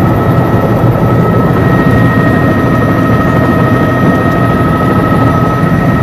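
Helicopter engine and rotor running steadily, heard from inside the cabin: a constant low drone with a steady high whine over it.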